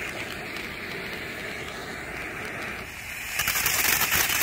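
Santan Fireworks Panther Attack 500-gram fountain spraying sparks with a steady hiss. About three seconds in it gets louder and breaks into dense, rapid crackling as it throws glittering stars.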